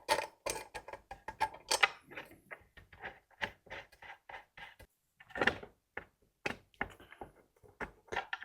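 Irregular small clicks and knocks of screws and the rack's wooden and metal parts being handled and fitted together by hand.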